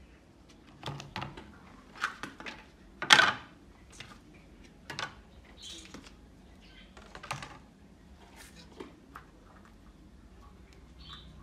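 Parts of a dirty MacBook laptop, its keyboard top case and battery, being handled and set down on a table: scattered plastic clicks and knocks, the loudest about three seconds in.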